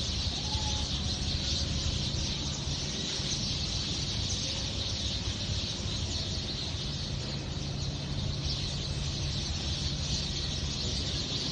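A large flock of sparrows chirping together in a dense, continuous chatter, over a steady low rumble.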